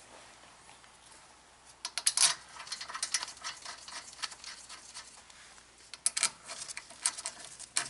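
Rear brake caliper being fitted back over the pads onto its bracket: irregular clusters of light metallic clicks and clinks, about two seconds in and again near the end.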